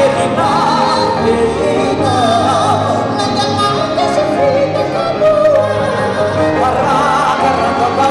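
Male vocalists singing a Malagasy gospel song, the melody wavering with vibrato, over live keyboard and guitar backing.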